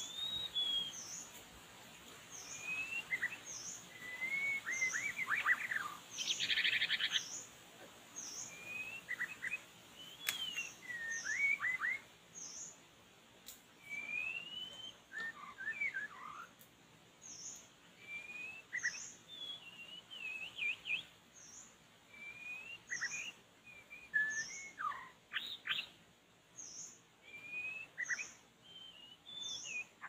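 White-rumped shama (murai batu) singing varied whistled phrases of rising and falling notes, with a short harsh rattle about six seconds in. A short high note repeats steadily about every second and a half behind the song.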